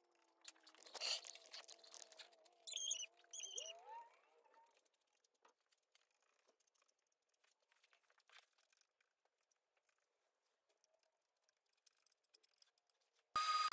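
A putty knife working wood filler onto an MDF edge, heard faintly as squeaks and light scraping and tapping. Near the end a random orbit sander with dust extraction starts up suddenly: a loud steady whine with hiss.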